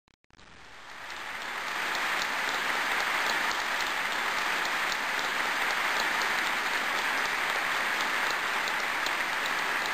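Crowd applauding, fading in after a momentary cut in the sound and swelling over the first two seconds, then holding steady.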